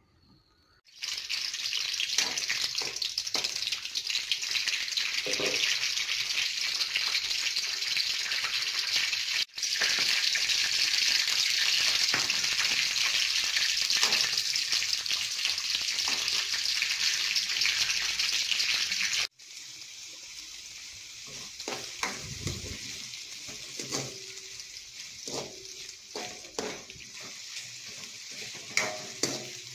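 Hot oil sizzling hard in a metal wok as pandan leaves, green chilli and curry leaves fry, starting suddenly about a second in. About two-thirds of the way through the sizzle drops to a softer frying, with a spatula scraping and tapping against the pan as chopped onions are stirred.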